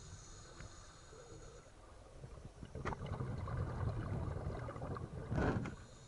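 Scuba regulator breathing heard underwater: a hissing inhale that stops about a second and a half in, then a long bubbling exhale, loudest near the end.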